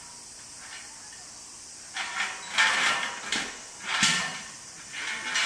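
Chain rattling and scraping over a steel gate bar while an African elephant tosses the tyre hung from it. It comes in several loud, jangly bursts starting about two seconds in.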